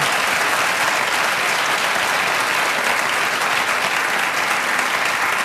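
Studio audience clapping steadily, a dense, even patter of many hands.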